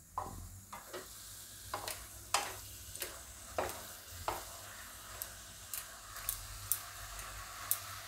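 Spatula stirring chopped spinach in a non-stick kadai: about a dozen short scrapes and taps against the pan, roughly every half second to second. Under them is a faint steady sizzle of the spinach cooking in hot oil.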